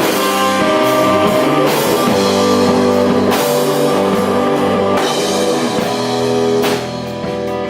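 Rock band playing live: electric guitars and bass over a drum kit, with a cymbal crash about every second and a half.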